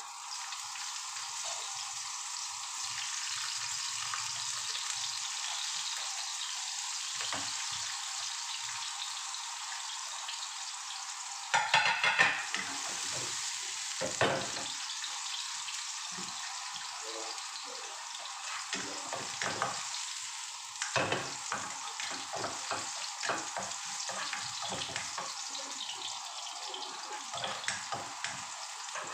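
Sliced ginger and spring onion heads sizzling in hot oil in a wok, a steady frying hiss with a louder burst near the middle. From about halfway on, the spatula clicks and scrapes against the wok as they are stirred.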